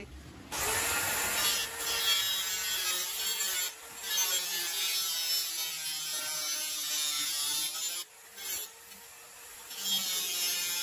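Handheld electric saw (maquita) running as it cuts lengthwise along a 100 mm PVC pipe, its pitch wavering under load. The sound drops out briefly about four seconds in and again for over a second around eight seconds.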